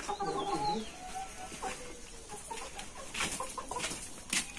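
Laying hens clucking, with a few sharp scuffs or knocks, the clearest about three and four and a half seconds in.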